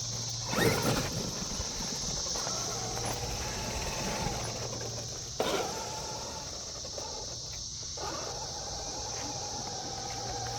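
Traxxas XRT RC truck's electric motor whining as it drives, its pitch rising and falling with the throttle, with two sudden knocks, about a second in and about halfway through. A steady high insect drone runs underneath.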